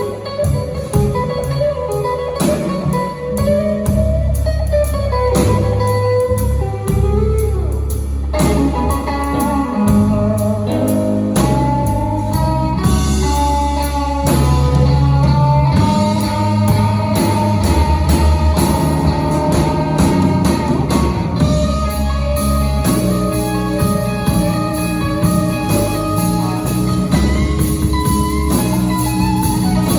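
Blues band playing: an electric guitar lead with bent notes over bass and drums.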